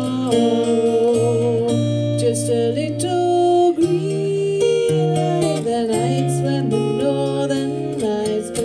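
A woman singing held, sliding notes to a strummed acoustic guitar.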